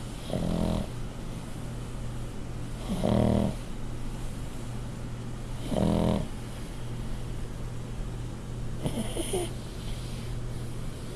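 A sleeping pug snoring: three loud rasping snores about three seconds apart, then a shorter, hissier snuffling breath about nine seconds in.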